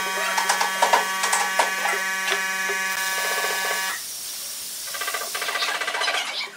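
Pine boards knock and clack together as they are set into pipe clamps, over a steady electric buzz that cuts off suddenly about four seconds in. Near the end comes a sputtering, likely wood glue squeezed from a bottle.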